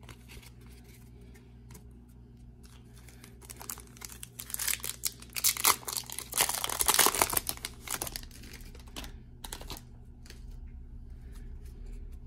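Foil wrapper of a baseball card pack being torn open and crinkled, loudest from about five to seven and a half seconds in. Before and after, there are lighter scattered clicks of the cards being handled.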